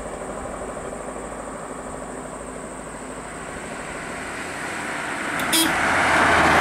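A motor vehicle running on the road, its engine and tyre noise growing steadily louder over the last couple of seconds, over a constant high-pitched insect drone. A brief click sounds about five and a half seconds in.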